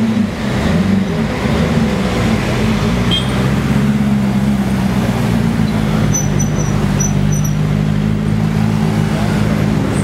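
Gumpert Apollo's twin-turbo V8 running steadily at low revs as the car creeps past in slow traffic, its pitch wavering briefly about a second in.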